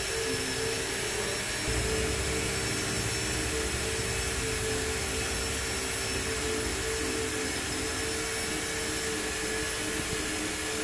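Steady machinery running: a constant hum with a thin high whine over it, and a low rumble that gets stronger about two seconds in.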